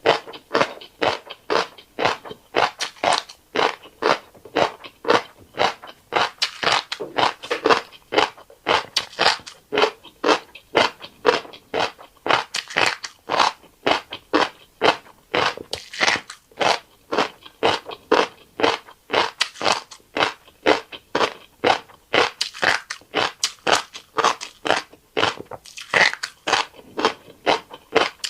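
Close-up eating sounds of a person chewing a mouthful of fish roe and rice: a steady, even rhythm of wet, crackly chews, about two to three a second.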